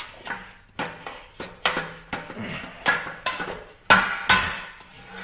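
A string of irregular metal clanks and knocks, some ringing briefly, from motorcycle rear-suspension parts and tools being handled and knocked during disassembly. The two loudest hits come about four seconds in.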